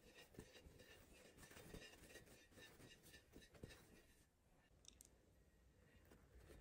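Near silence, with faint soft scraping and light ticks of a metal offset spatula spreading taro cream over a cake, fading out a little after halfway.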